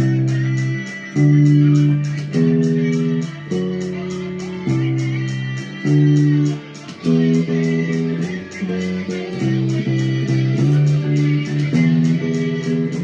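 Instrumental music: held low chords that change about once a second over a steady, fast, ticking beat.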